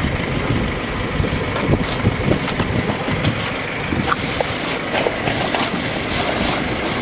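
Wind buffeting the microphone: a loud, rough, steady rumble, with a few scattered knocks from the camera being handled.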